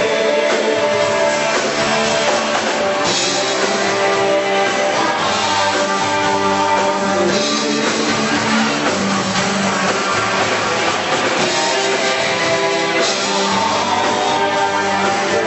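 Country-rock band music with electric guitar and a drum kit keeping a steady beat.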